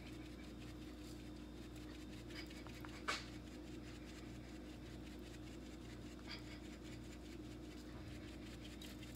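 Faint scratchy rustling and soft taps of a paprika shaker being shaken over raw chicken, with one sharper tap about three seconds in, over a low steady hum.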